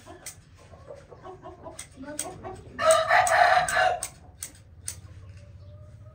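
Aseel rooster crowing once, a short crow lasting about a second a little under halfway through, preceded by low clucking. Short sharp clicks come and go throughout.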